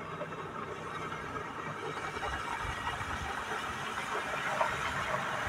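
Outboard motor of a small motorboat running at speed, growing steadily louder as the boat approaches.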